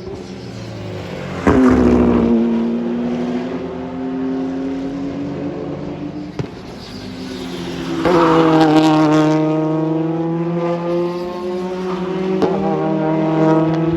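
Race cars on a circuit, two passing close by at speed, about a second and a half in and again about eight seconds in. The engine note drops in pitch as each goes past, with another engine running underneath between the passes.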